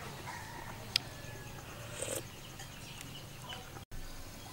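Domestic chickens clucking in the background with a few short, scattered calls, and a single sharp click about a second in. The sound drops out for an instant near the end.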